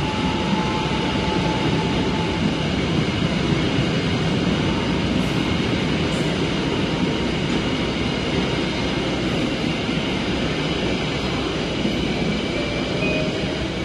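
KA Jakatingkir passenger train's coaches running through the station at speed: steady, even wheel-on-rail noise as the carriages pass close by.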